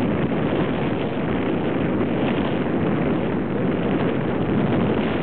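Steady wind rush on the microphone mixed with the running noise of a motorbike riding along at steady speed.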